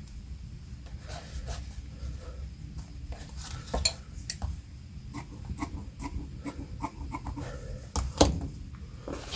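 Irregular light clicks and clinks of small hard objects being handled on a work surface, with a sharper click about eight seconds in, over a faint low room hum.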